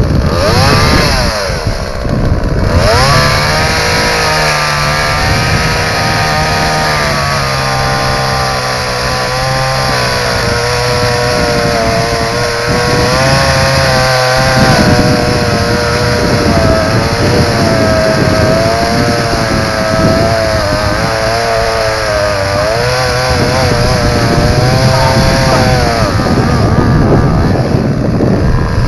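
Petrol chainsaw engine running at high revs, its pitch wavering and dipping up and down.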